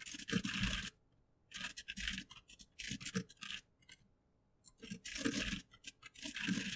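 Computer keyboard typing in about five short bursts of keystrokes with brief silent gaps between them.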